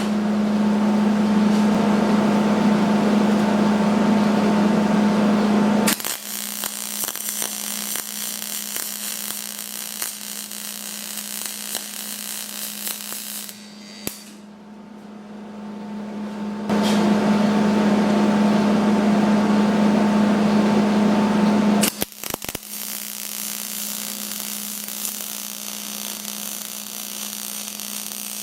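Hobart Spoolrunner 100 spool gun MIG-welding aluminum on DC electrode positive with argon: two runs of steady arc buzz and hiss, the first stopping about six seconds in and the second running for about five seconds past the middle. Between the runs, a quieter steady machine noise carries on.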